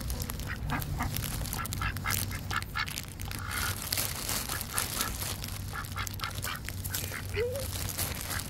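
A group of ducks quacking, many short calls in quick succession, with a brief rising call about seven and a half seconds in.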